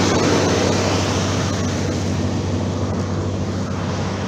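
Road traffic: a motor vehicle's engine running close by as a steady low hum, under the steady wash of passing cars.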